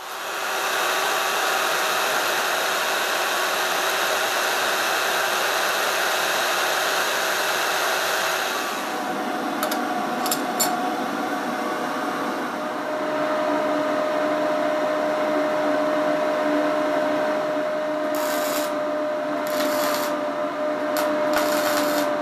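Band saw running and cutting metal flat bar into strips. About eight seconds in the sound changes to a steadier whine with a held tone, and short crackling bursts come near the end.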